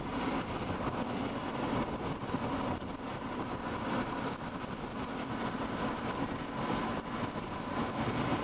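Steady road noise inside a moving car: tyres running on a wet road with the engine's hum.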